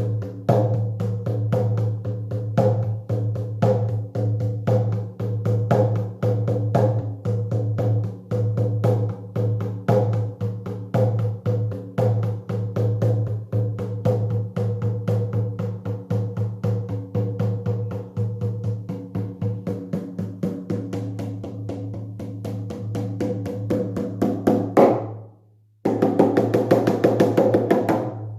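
Shamanic hand drum beaten in a steady, fast, even rhythm, its low ring carrying between the strokes. Near the end the beat swells, stops for a moment, then starts again denser and brighter.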